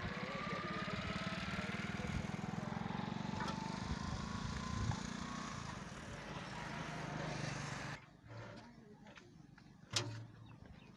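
A vehicle engine running steadily, which stops abruptly about eight seconds in. A quieter background follows, with one sharp knock about two seconds later.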